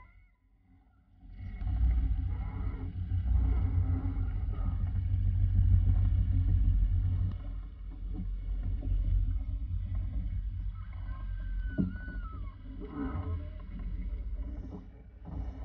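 Wind buffeting the microphone and water rushing along the hull of a sailboat heeled under sail, a steady low rumble that starts after about a second of near silence. A brief high squeak rises and falls in pitch about three-quarters of the way through.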